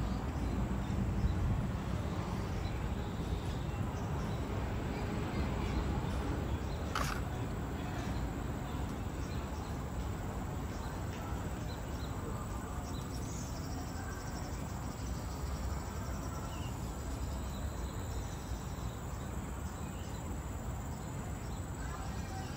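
Ambience of a leafy garden path: a steady low rumble, a thin high steady insect drone, and a few faint bird calls, with one sharp chirp about seven seconds in.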